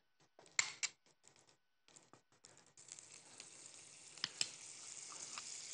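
Butter and button mushrooms sizzling in a hot frying pan as the added butter melts. A few light clicks come first, then a steady hiss starts about three seconds in and slowly grows louder.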